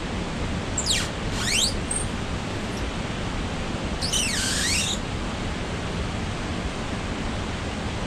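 Steady rushing noise of falling water, with two brief high squeaks that slide down in pitch, one about a second in and one around four seconds in.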